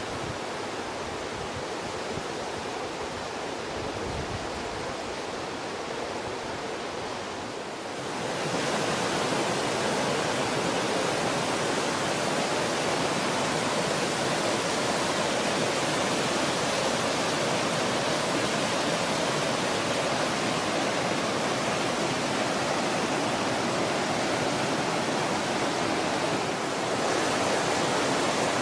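Loud mountain creek running over cascading waterfalls: a steady rush of water that gets louder about eight seconds in.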